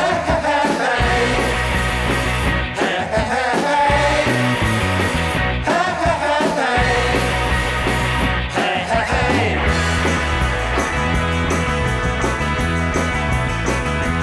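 Rock music with a sung vocal over bass and a steady beat.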